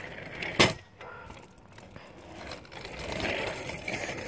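Small wheels rolling over an asphalt road, with one sharp knock about half a second in. The rolling noise grows louder from about three seconds in.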